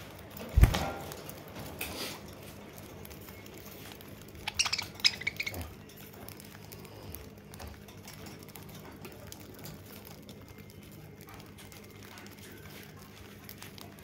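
Budgerigars pecking at seed in a dish inside a wire cage: a low steady hum with faint clicking, one sharp thump about half a second in, and a short burst of high-pitched clicks and squeaks around five seconds in.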